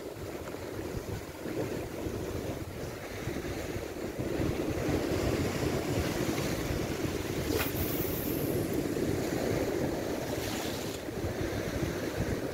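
Sea surf washing against shoreline rocks, with wind buffeting the microphone. About seven and a half seconds in there is a single sharp click followed by a short high hiss.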